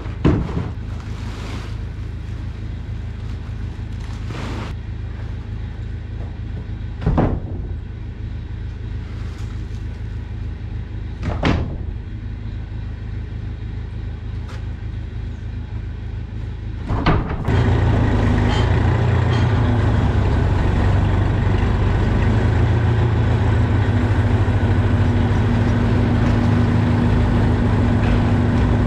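A low steady hum with four sharp knocks, spaced several seconds apart, as fertiliser big bags are handled; then, about 17 seconds in, a diesel tractor engine running steadily close by, much louder.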